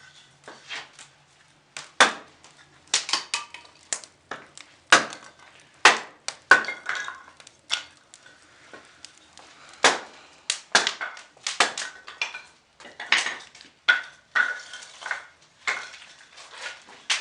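Irregular metallic clanks, knocks and scrapes of a masonry stove's cast-iron fittings being worked by hand, such as the main chimney damper (yushka) and the sliding damper plates being opened and shut. Some of the clanks ring briefly.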